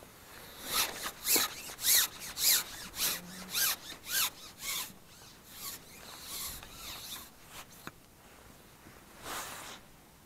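A carbon fishing pole sliding through the angler's hands and against a waterproof jacket sleeve as it is fed back out. It makes a run of short rasping rubs, about two a second, which grow fainter after about five seconds, with one more rub near the end.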